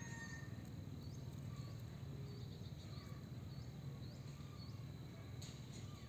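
Outdoor natural ambience: short, high, upward-flicking chirps repeating about twice a second over a steady low hum.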